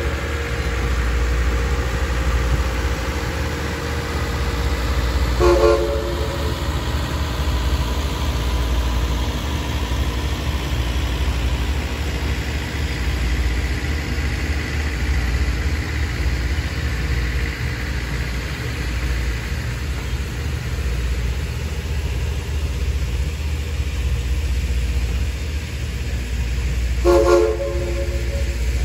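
Steam locomotive 4501's whistle sounding two short blasts of several notes together, about five seconds in and again near the end, over a steady low rumble.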